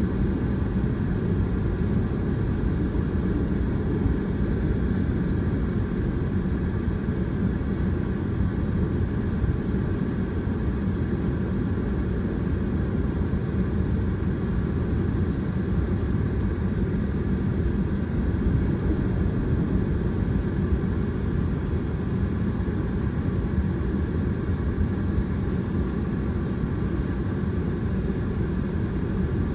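Freight train of tank cars and covered hoppers rolling steadily past a road crossing: a continuous low rumble of wheels on rail, heard from inside a car.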